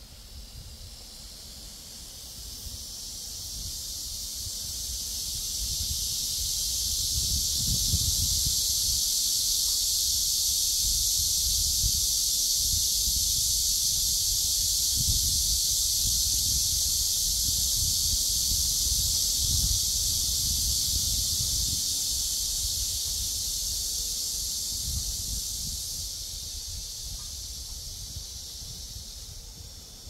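Cicadas buzzing in a chorus: a steady high-pitched drone that swells up over the first several seconds, holds, and fades away near the end. Wind rumbles on the microphone underneath in gusts.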